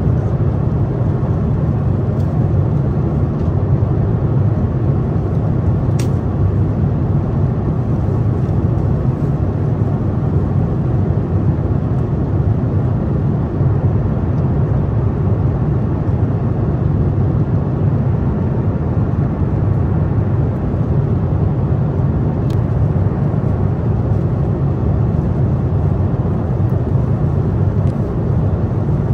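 Steady, low cabin drone of an Airbus A350-900 airliner in flight, from airflow and engine noise heard inside the passenger cabin.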